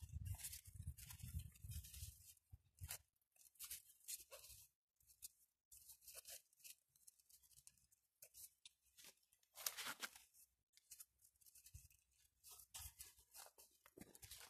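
Faint, irregular rustling and crackling of Siberian iris leaves being twisted and plaited into a braid by hand. There is a low rumble in the first couple of seconds.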